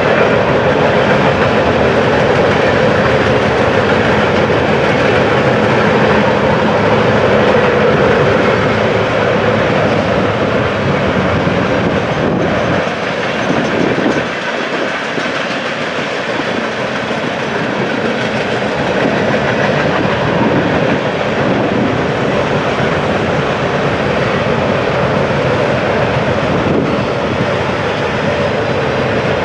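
Train rolling past on the track, the railcars making a steady, loud rolling noise, with a brief dip about halfway through.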